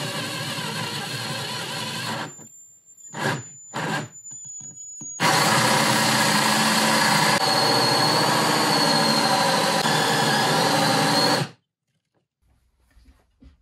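Cordless jigsaw cutting through a wooden countertop along the sink cut-out line from a drilled pilot hole. It runs for about two seconds, stops, gives two short bursts, then cuts steadily for about six seconds before stopping abruptly.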